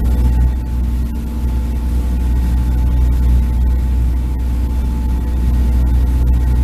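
Steady low drone of a boat engine running, with a few held tones riding over a deep rumble.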